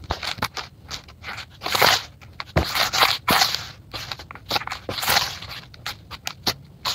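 Hands pressing, crumbling and raking a heap of crunchy, grainy dirt in a plastic basin: irregular crunching and crackling, with the loudest crunches about two, three and five seconds in.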